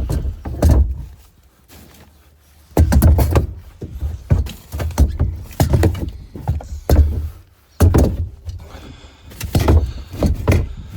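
A series of loud, irregular thumps and knocks, objects being handled and set down, with a quieter gap of about a second near the start.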